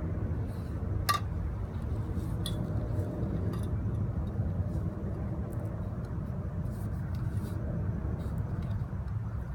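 Propane torch flame running steadily while heating a copper pipe joint for soldering. A sharp metallic click with a brief ring about a second in, and a few fainter clicks later.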